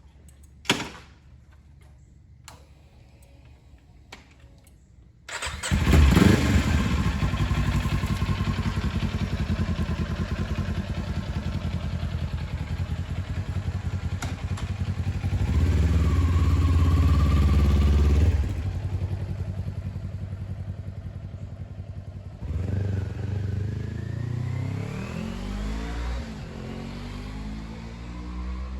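Kawasaki Ninja 400 parallel-twin engine starting about five seconds in, after a sharp knock, and running; it gets louder briefly around the middle, settles back, then rises in pitch near the end.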